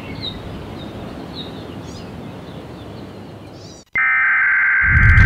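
Birds chirping over a steady outdoor hiss, cut off suddenly about four seconds in. A steady high-pitched tone then starts at once, with a deep rumble swelling beneath it near the end.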